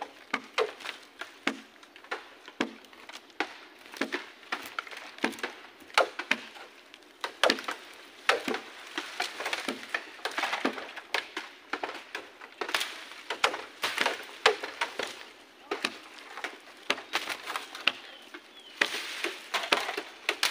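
Dry slashed bamboo and leaf litter cracking and snapping. The sharp cracks come irregularly, a few each second.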